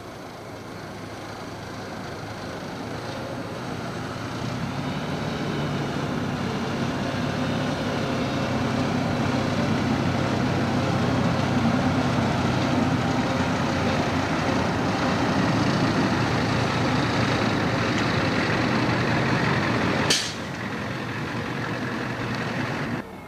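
Engines of an asphalt distributor truck and a compact tractor running steadily as a low drone, growing louder over the first ten seconds or so. About twenty seconds in there is a sharp click and the sound drops to a lower level.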